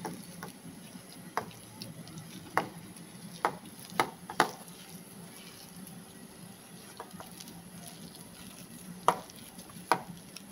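Boiled potatoes being mashed by hand in a stainless steel bowl: soft squishing, with several sharp taps as the hand knocks against the bowl's side.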